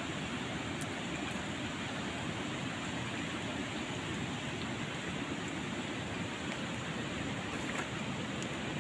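Steady rushing of river water flowing through shallows.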